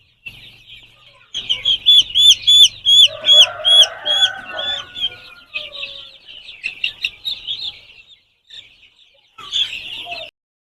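Chicks peeping: many short, high cheeps, most regular at about four a second in the first few seconds, with a lower chirring call mixed in for a couple of seconds and then scattered cheeps.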